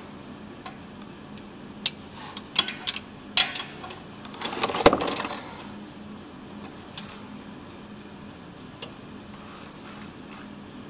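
Scattered sharp metallic clinks and clatter of hand tools, a wrench and socket on steel bolts under the car, with a busier cluster about five seconds in and a couple of lone clicks later.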